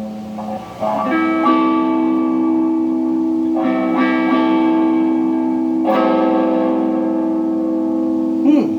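Electric guitar chords strummed through an amp and left to ring, three strums a little over two seconds apart, with a short sweep falling and rising in pitch near the end.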